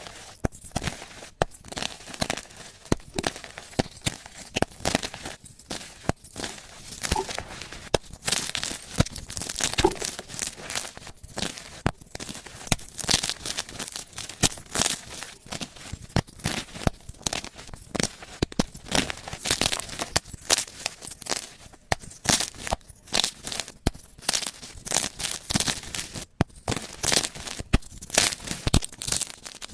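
Gym chalk being crushed and crumbled up close, a dense, irregular run of crunching and crackling with louder clusters of crackles throughout.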